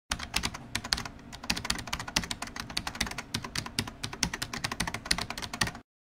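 Fast, irregular clicking of computer-keyboard typing, many keystrokes a second, that cuts off suddenly near the end.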